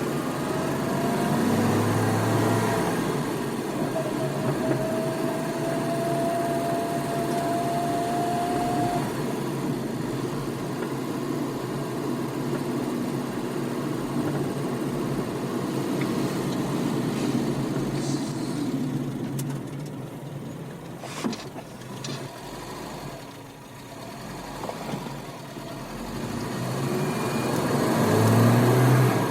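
Car engine running under load and rising in pitch as it accelerates through the gears, with a quieter stretch and a few sharp clicks about two-thirds of the way through, then revving up again near the end.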